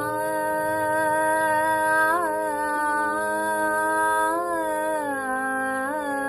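A woman singing a slow, drawn-out opening phrase of a Kannada devotional dasara pada, holding long notes with a few slow ornamental bends in pitch over a steady drone.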